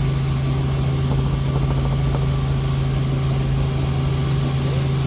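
Helicopter engine and rotor running in flight, heard on board: a steady, loud low hum with a constant tone that does not change.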